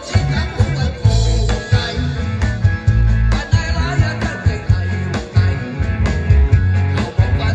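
Band playing an upbeat rock-and-roll passage: a drum kit keeps a steady beat under bass and guitar.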